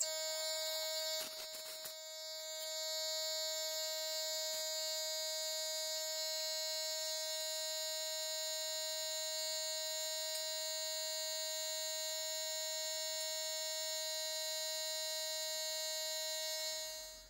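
A steady buzzing drone of many held tones that starts abruptly and cuts off abruptly, with no knocks or rhythm in it.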